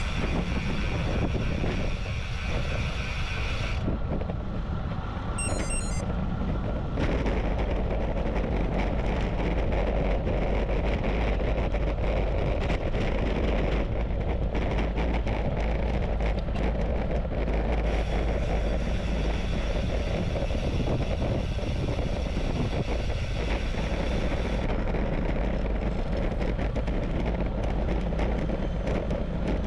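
Wind buffeting a GoPro action camera's microphone on a moving road bike, a steady low rumble with road noise underneath. A higher hiss joins for the first few seconds and again for several seconds past the middle.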